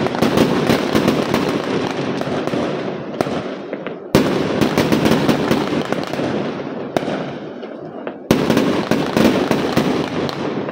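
Aerial fireworks bursting overhead with dense crackling of many small pops. Two sudden loud bursts come about four and eight seconds in, each followed by crackling that fades away.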